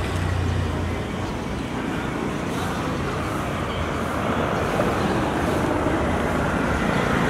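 Steady roar of road traffic. A low engine hum fades out about a second in.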